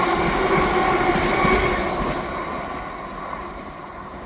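Two coupled Greater Anglia Class 720 electric multiple units running past, a steady whine over the rumble of the train. The sound fades away from about two seconds in.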